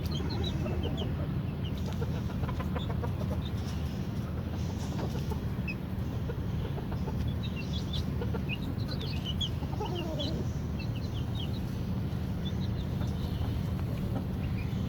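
Aviary birds calling: many short, high chirps throughout, with a lower call about ten seconds in, over a steady low rumble.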